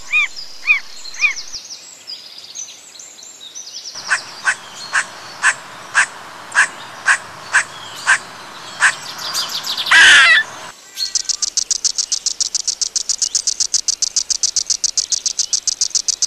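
Wildlife sound bed: birds calling, then sharp calls repeating about twice a second, a short louder burst about ten seconds in, and from about eleven seconds a fast, high pulsing insect-like trill.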